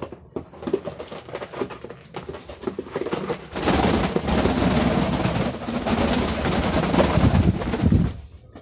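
Frillback pigeons scuffling on a bedspread and flapping their wings: scattered rustles and taps at first, then loud, continuous wing-flapping from about three and a half seconds in, stopping sharply near the end.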